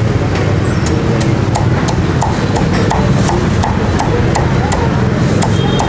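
Cleaver chopping roast pork with crackling skin on a thick wooden chopping block: quick, even chops about four to five a second, starting about a second in. A steady low rumble of street traffic runs underneath.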